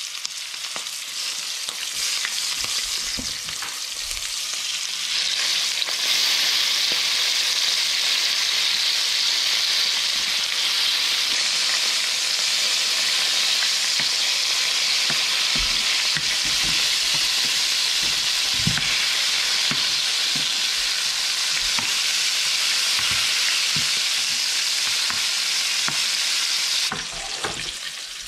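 Coated clams frying in a shallow pan of hot oil: a steady sizzle that grows louder about five seconds in and eases off near the end.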